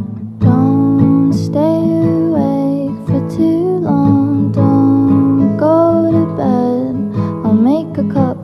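Background music led by acoustic guitar, with a melody line that slides between notes over held chords.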